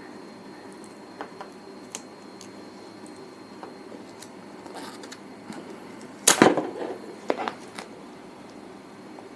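Knife and fingers working the sticker wrapper off a swollen modem battery: small scattered clicks and taps, with a short, louder crackling tear about six seconds in and a smaller one a second later.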